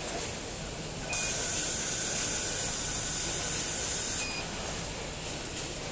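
Compressed air hissing from the tray denester's pneumatic system. It switches on abruptly about a second in, holds steady for about three seconds, then cuts off sharply.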